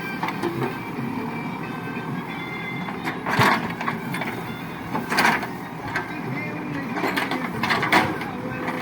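ACE backhoe loader's diesel engine running steadily, with several short, loud, harsh noisy bursts over it about a third, a half and four-fifths of the way in.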